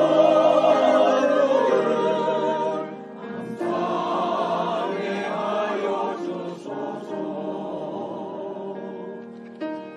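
Church choir singing a hymn with piano accompaniment. Two sung phrases with a short break about three seconds in; the voices drop to softer, held notes over the last few seconds.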